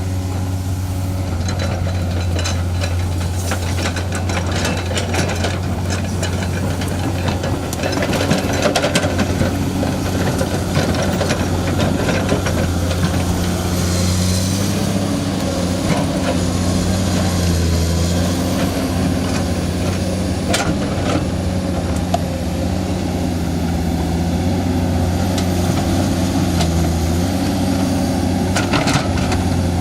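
Heavy diesel engine of construction machinery running steadily, its speed rising and falling a little as it works. Scattered short knocks and clanks are heard over it, most clearly about eight to ten seconds in, around twenty seconds in and near the end.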